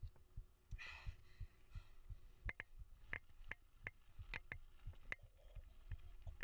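Full-suspension mountain bike (GT Force X Expert) rolling slowly over gravel: irregular light clicks and knocks from the bike rattling over the stones, over low dull thumps. A short hiss about a second in.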